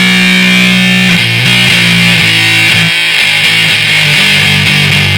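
Heavily distorted electric guitar played through a maxed-out fuzz pedal into a Marshall DSL 40C valve amp. A chord rings for about a second, then a fast riff of quickly changing notes follows.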